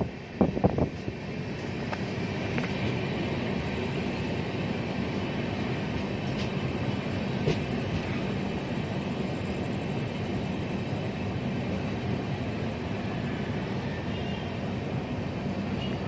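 A train running past, heard as a steady, even noise, with a few sharp knocks in the first second.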